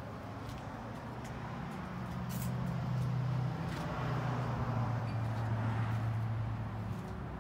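A motor vehicle's engine humming steadily, growing louder from about two seconds in and easing off near the end, over a faint outdoor traffic hiss.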